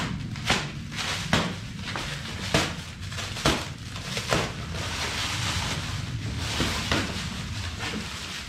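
Handling noise while unpacking a belt grinder: a run of sharp knocks and clatters about once a second, then rustling of packaging for the last few seconds.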